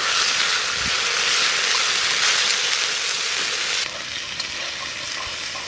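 Ground chili-spice paste sizzling in hot oil with sliced onions in an iron kadai, a loud, even hiss. About four seconds in it drops suddenly to a quieter frying sizzle as the paste is stirred with a spatula.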